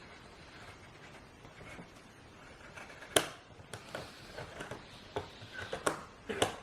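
Watch case wrench being turned counterclockwise on a screw-down steel caseback: a sharp metallic click about halfway through, then a run of small clicks and taps of the tool tips and case.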